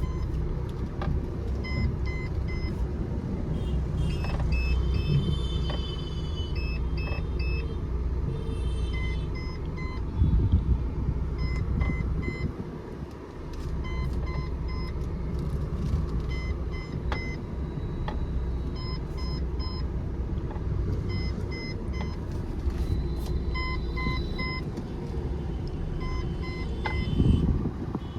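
Maruti Vitara Brezza running on a short drive: a steady low engine and road rumble, with repeated short electronic beeps above it.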